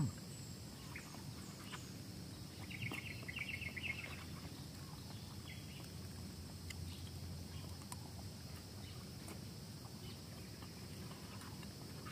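Quiet outdoor ambience over a low steady background rumble, with a bird giving a short, rapid chirping trill about three seconds in.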